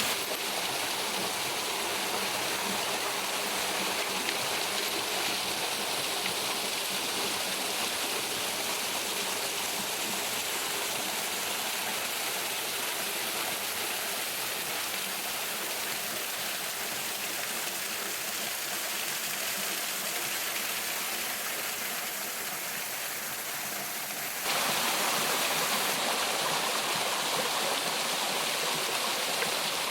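Waterfall rushing steadily, a dense even splash of falling water, which gets suddenly louder late on.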